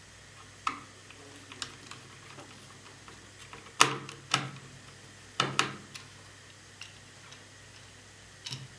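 Scattered sharp clicks and knocks of laptop parts being handled and fitted during reassembly, with four louder knocks around the middle.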